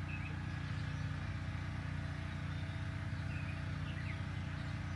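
Steady low hum of background noise, with a few faint short high chirps.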